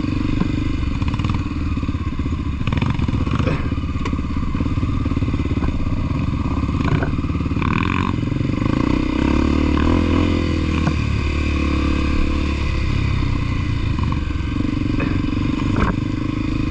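Trail motorcycle engine running under way on a rough dirt track. Its pitch rises around the middle and settles again, with occasional knocks and clatter.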